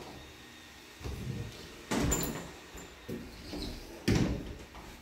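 Interior doors being handled: knob and latch clicks and the door knocking as it swings, several separate knocks about a second apart, the loudest a little after four seconds in.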